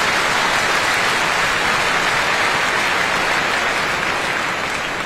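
Tennis crowd in a packed arena applauding a finished point, a steady dense clapping.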